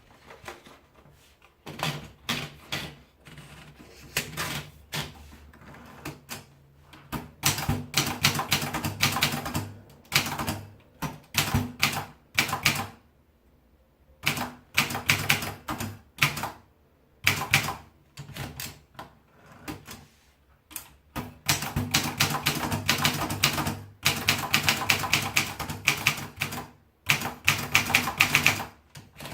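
Princess 100 typewriter being typed on: quick runs of key strikes broken by a few short pauses of a second or two.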